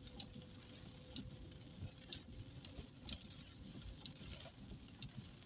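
Rain pattering on the car's windscreen and roof, heard from inside the cabin as scattered irregular ticks over a low road rumble, with a faint steady hum.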